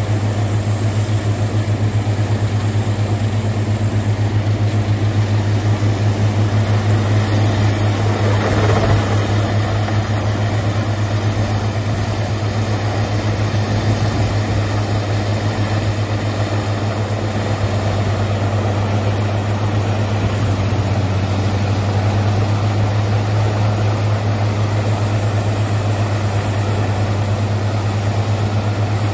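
Heavy diesel machinery of a whole-tree chipping setup, a Peterson 5900E chipper with a log loader and feeding machine beside it, running steadily with a loud, low drone. The noise swells briefly about eight to nine seconds in.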